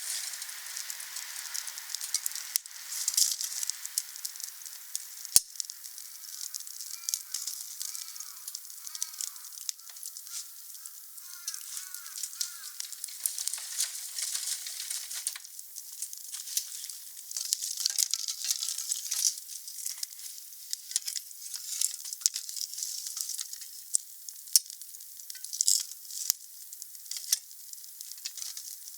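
Wood fire burning: a steady crackling hiss with sharp pops now and then, and a stretch of faint warbling whistles a few seconds in.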